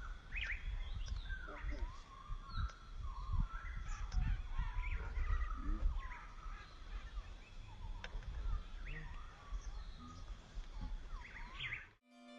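Several birds calling, with many short chirps and calls rising and falling in pitch, over a low, uneven rumble. The sound cuts off abruptly near the end.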